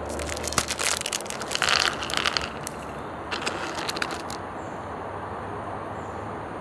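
Plastic snack packet crinkling as it is handled and opened, in two spells of crackling, the second about three seconds in.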